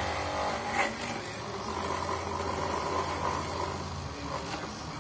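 Electric coconut grater's motor running with a steady hum while a piece of coconut meat is pressed against its spinning toothed grating drum. A sharp click comes a little under a second in.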